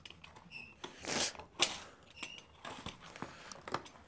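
Box cutter slicing and scraping through packing tape on a cardboard parcel: a string of short rasps and scratches, with a sharp click about one and a half seconds in.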